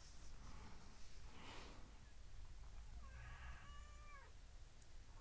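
Domestic cat giving one meow about three seconds in, about a second long and dropping in pitch at the end. A soft rustle comes about a second and a half in.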